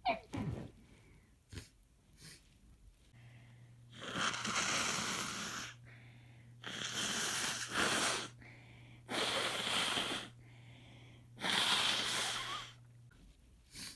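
A person's breath and nose sounds during a muffled sneezing fit: a short sharp burst at the start, then four long breathy, wheezing blasts of air, each about a second and a half, evenly spaced. A low steady hum runs under the middle of it.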